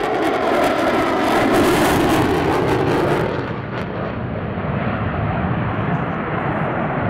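F-22 Raptor's twin Pratt & Whitney F119 turbofans during a fast pass: loud jet noise with a ragged crackle on top. About three seconds in the crackle cuts off, leaving a duller, slightly quieter rumble as the jet banks away.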